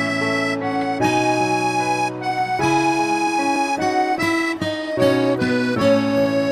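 Instrumental background music: sustained chords and melody notes that change every second or so.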